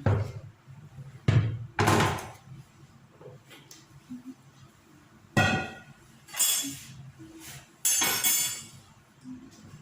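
Kitchenware being handled: several knocks and thumps, a ringing clink about five and a half seconds in, and short scraping sounds near the end.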